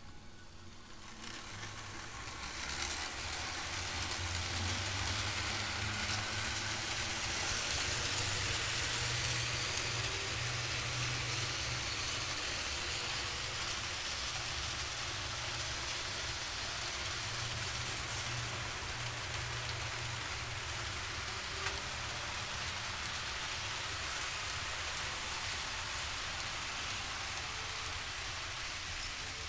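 Model freight train running on layout track: the steady whir and rattle of many wheels on the rails, with a low hum from the locomotives' motors. It grows louder over the first few seconds, then runs on evenly.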